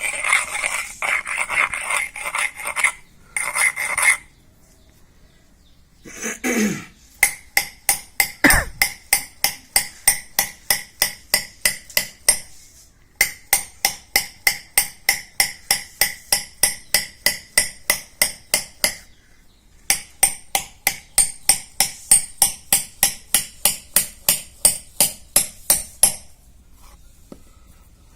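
Hammer pecking small pits into the face of a stone shil pata grinding slab, striking evenly about two and a half times a second with two short breaks, re-roughening the worn grinding surface. Before the strikes begin there are a few seconds of scraping on the stone.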